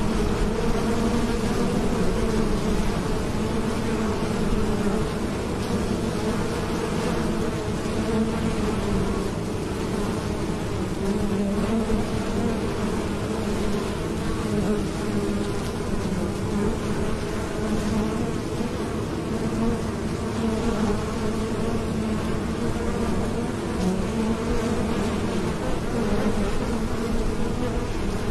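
Honeybees flying at a hive entrance, many wings together making a steady, continuous buzzing hum.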